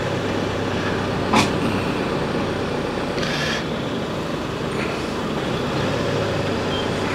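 A motorhome's engine idling steadily, heard from inside the cab while queued in slow traffic. A sharp click comes about a second and a half in, and a short hiss about three seconds in.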